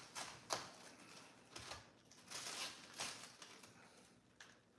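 Faint, scattered taps and leafy rustles of a head of cabbage being handled and trimmed with a knife on a countertop, the sharpest tap about half a second in.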